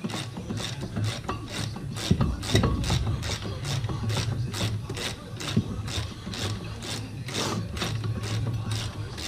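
Hand ratchet clicking in steady strokes, about three clicks a second, over a low steady hum, as it works a brake caliper bracket bolt.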